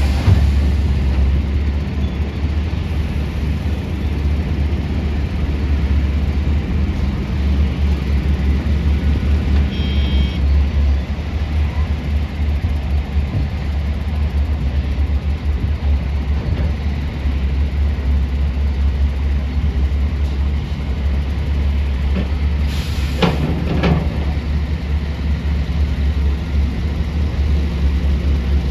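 Heavy diesel mining machinery, a large excavator and dump trucks, running steadily with a deep engine rumble. About three quarters of the way through there is a short burst of hiss.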